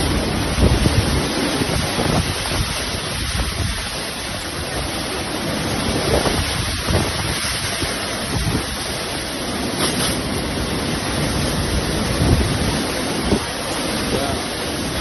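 Strong monsoon storm wind blowing in gusts, a steady rush rising and falling, with the gusts buffeting the microphone in low rumbles.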